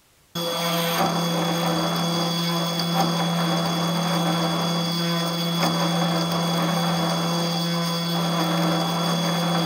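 Small CNC milling machine's spindle running, its end mill cutting a metal jig blank: a steady whine with several high tones, starting suddenly about a third of a second in.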